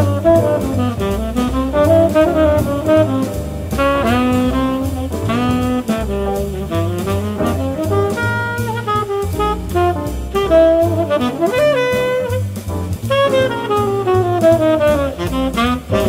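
Jazz quartet recording: a tenor saxophone plays a fast, busy solo line of quick runs over bass and drums.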